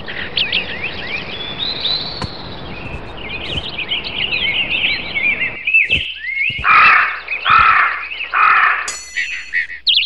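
Recorded bird sounds played by the software: rapid high chirps and twittering, then, from a little past halfway, several harsher calls under a second apart.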